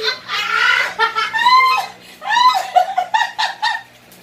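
Loud hearty laughter: high, rising squeals of laughing, then a quick run of short ha-ha pulses about three seconds in, dying down near the end.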